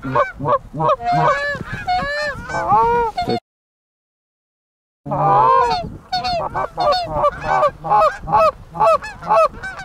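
Rapid run of loud, overlapping Canada goose honks and clucks, several calls a second. It breaks off into complete silence for about a second and a half near the middle, then resumes.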